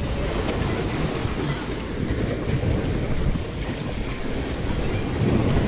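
Sea waves washing and churning against the rocks, with wind rumbling on the microphone.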